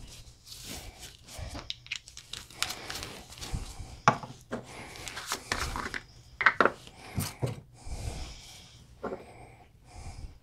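Gloved hands handling small plastic bottles, jars and tools on a plastic work board: irregular clicks, taps and rustling, with a few sharper knocks, as a dye bottle is set down and a small powder jar is opened.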